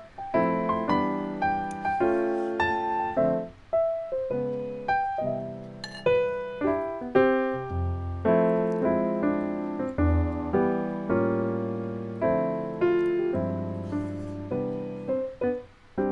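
Background piano music: a gentle melody over chords, each note struck and fading.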